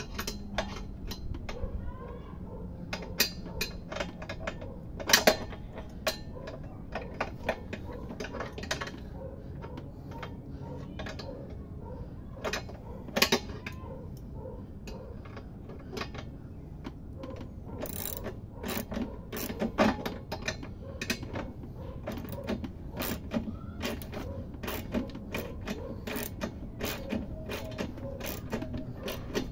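Socket ratchet wrench clicking in short irregular runs as it tightens the axle nut holding a compressor's plastic wheel, with the occasional louder clack of the tool against the wheel or tank.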